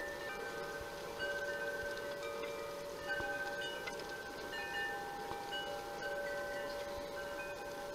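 Chimes ringing: tuned notes at several pitches struck at irregular moments, each ringing on and overlapping the others.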